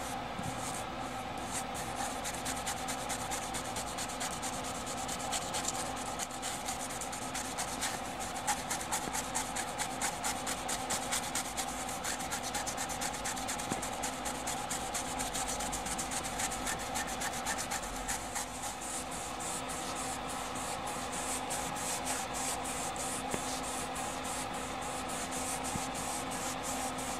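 A small stiff brush scrubbing mold off the edge of a water-damaged 2-inch quadruplex videotape pack in rapid back-and-forth strokes, a dry scratchy rubbing. A steady electrical hum runs underneath.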